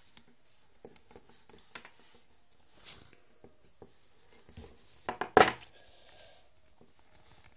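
Scissors and a roll of adhesive tape being handled, with small scattered clicks and one loud, sharp snip about five seconds in as the scissor blades cut the tape.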